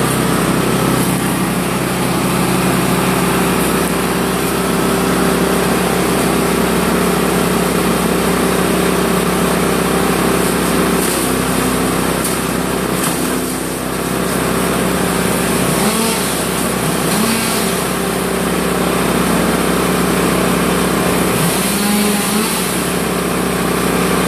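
Hecht 6420 petrol branch chipper running steadily at working speed, its level dipping briefly about 13 seconds in, with a few short bursts of higher-pitched noise over the engine.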